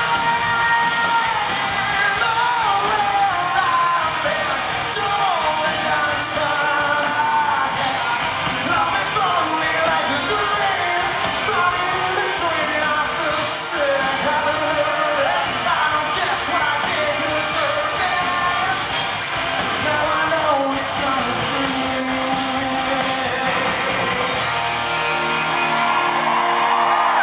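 Live rock band heard from the audience in a large hall: a male lead singer over electric guitars and drums. Near the end the low end of the band drops away as the song winds down.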